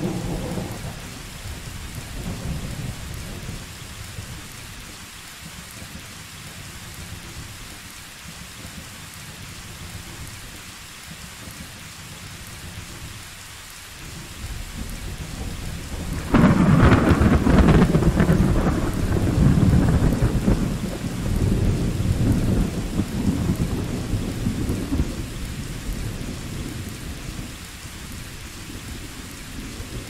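Steady rain with thunder. A rumble dies away in the first second; about halfway through, the thunder builds and breaks into a loud clap, then rolls on and slowly fades.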